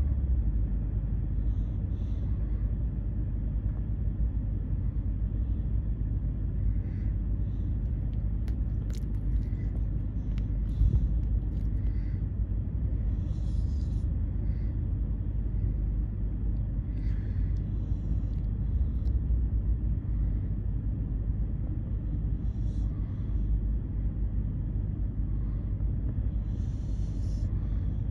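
A steady low rumble, with faint short noises from a sleeping beagle that is dreaming scattered through it.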